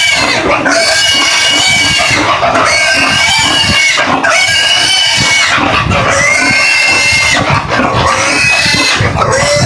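Fattening pig squealing loudly while it is restrained for deworming: a string of long screams, each a second or more, with short breaks between them.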